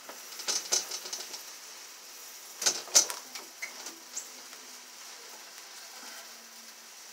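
Sausage links cooking on a George Foreman electric grill: a faint steady sizzle with scattered clicks and taps of handling, two sharp ones about three seconds in.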